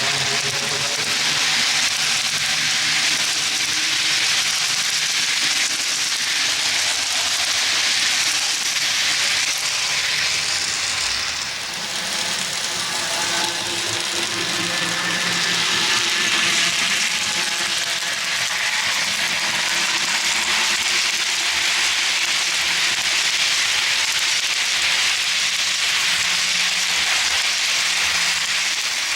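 Model train locomotive with no on-board sound system running along the track: the steady rolling clatter of small metal wheels on the rails, with a faint whine from its electric motor and gearing. The sound dips briefly and shifts about eleven seconds in.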